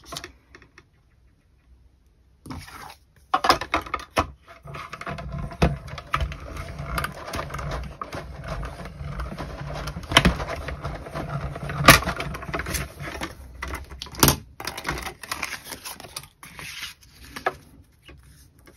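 Cardstock and a metal cutting die being handled and cranked through a hand-cranked die-cutting machine: rustling and scraping with several sharp clicks and knocks, starting about two and a half seconds in.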